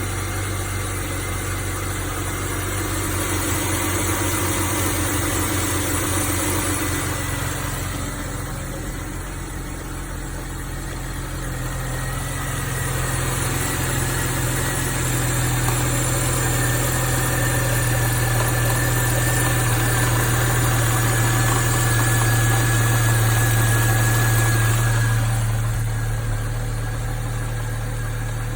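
A BMW 335i's turbocharged inline-six running at idle, with a steady hiss over the engine hum. The engine gets somewhat louder for a stretch in the second half.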